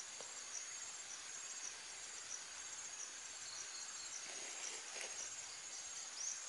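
Faint insects chirping steadily, a high pulsing trill repeating several times a second over a quiet outdoor background.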